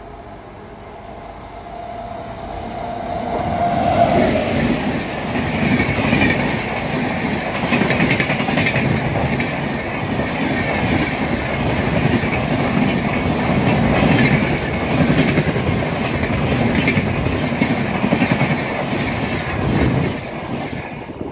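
A WAP-7 electric locomotive hauling an express of LHB coaches approaches at speed with a steady whine that grows louder. About four seconds in, the locomotive passes close by. From then on, the coaches rush past with a loud rumble and hiss and repeated clickety-clack of the bogies over the rail joints.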